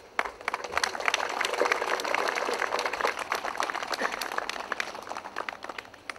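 Audience applauding: many hands clapping, starting suddenly, loudest in the first few seconds and dying away near the end.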